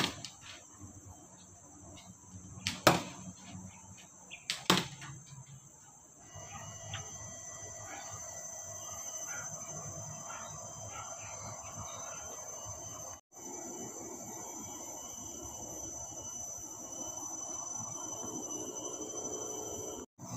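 Two sharp knocks in the first few seconds, then a steady high-pitched trilling of crickets from about six seconds in, cut off briefly twice.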